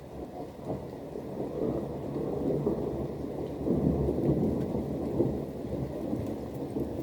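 Thunder rolling and rumbling, building over the first seconds and staying heavy through the middle, over steady rain.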